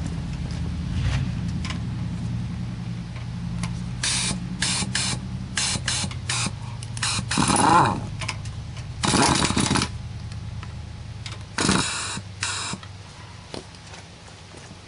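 Power tool, likely an impact wrench, run in a string of short bursts while spinning a wheel's lug nuts on; the longest burst, about a second, comes midway with the motor's pitch rising and falling.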